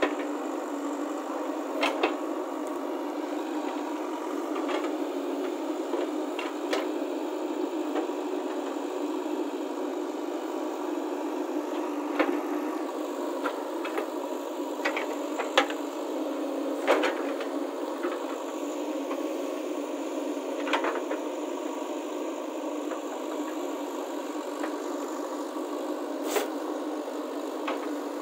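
JCB 3DX backhoe loader's diesel engine running steadily while the backhoe digs soil and stones, with a few sharp clanks and knocks scattered irregularly from the bucket and arm.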